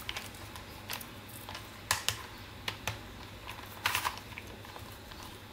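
Plastic clicks and clacks of a Rubik's cube as its layers are twisted, a few separate clicks with louder ones about two and four seconds in.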